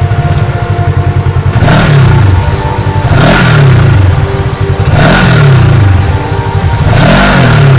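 Engine revved in about four throttle blips, each rising and then falling in pitch, at even intervals of roughly a second and a half.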